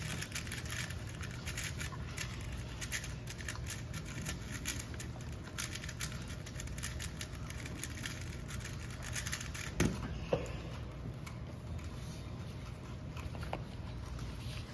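A 3x3 speedcube being turned quickly, a rapid run of plastic clicks, over the steady hum of a large hall. Two louder knocks come about ten seconds in.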